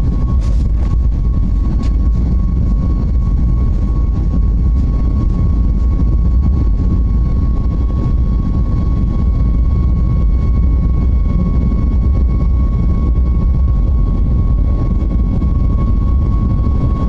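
Boeing 737 MAX 8's CFM LEAP-1B engines at high thrust, heard inside the cabin: a loud, steady low rumble with a thin steady whine on top.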